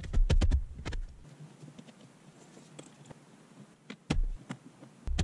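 A quick run of small clicks in the first second, then quiet with a couple of single clicks and a low knock near the end: a hand tool and plastic dash parts being handled while fitting 10 mm bolts into the dash.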